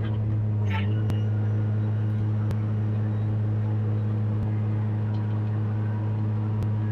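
Sumitomo SH210 amphibious excavator's diesel engine running at a steady pitch, heard from inside the operator's cab, with a few light clicks.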